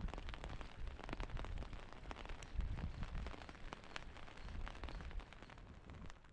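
Rain pattering in many small irregular taps, over a low, uneven rumble.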